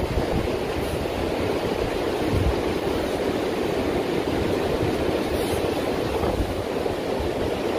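Steady rush of ocean surf mixed with wind buffeting the microphone, with low irregular rumbles from the gusts.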